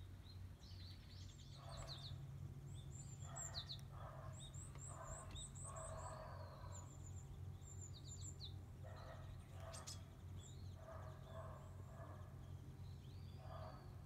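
Japanese white-eyes calling faintly: many thin, high chirps and quick runs of short notes, thinning out toward the end.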